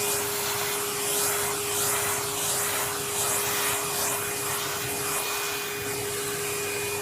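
Vacuum cleaner running with a steady motor whine, its suction noise swelling and falling in repeated swishes, about one a second, as the nozzle is drawn over a cat's fur; the swishes fade out near the end.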